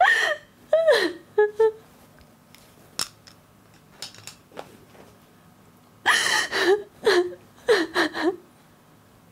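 A young woman sobbing in short, wavering high-pitched cries: a cluster of them at the start, then a quiet stretch with a few faint clicks, then another run of sobs from about six seconds in.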